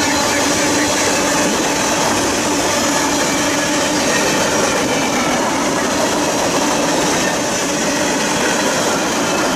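Freight train of tank cars rolling past at close range: a steady, loud rumble and rattle of steel wheels on rail, with a few faint steady whining tones running through it.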